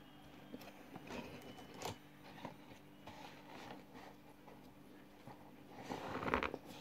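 Cornflour being sucked up through a plastic straw from a cardboard box: scattered small clicks and rustles of the straw and box, with a louder noisy draw a little past six seconds in.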